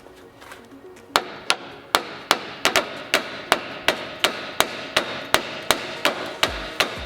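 Hammer blows on the steel radiator core support of a 2002 Ford F250 Super Duty, a steady run of sharp strikes about three a second starting about a second in, each with a short metallic ring. The bent support is being hammered to push it back into line.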